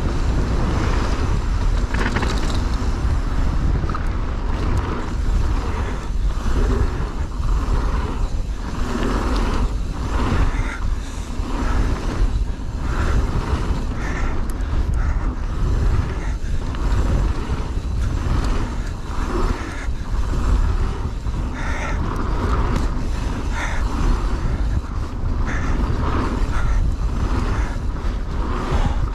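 Mountain bike descending a rough downhill trail at speed: a steady low rumble of wind on the microphone with continual rattling and knocks of the tyres and frame over roots and rocks.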